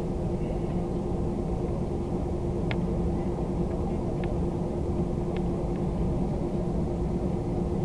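Airliner cabin noise: the steady drone of the jet engines and airflow, with a steady hum running through it. A few faint clicks sound about a third and halfway in.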